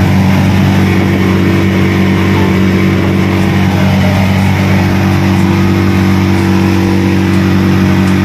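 Passenger jeepney moving along a road, heard from inside its open-sided cabin: a steady engine drone that holds an even speed, with wind and road noise.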